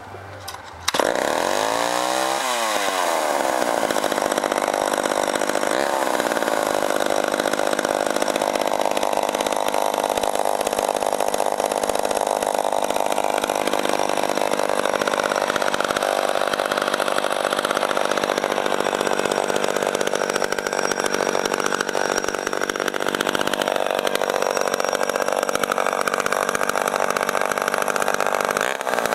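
Poulan 361 bow-bar chainsaw's 59cc two-stroke engine running. It comes in suddenly about a second in, is revved up and down shortly after, runs steadily, and is revved again near the end.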